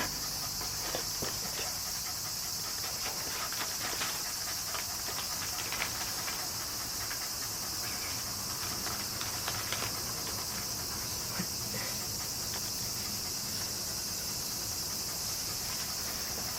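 A steady high hiss, like insects or crickets, under many small irregular clicks and ticks.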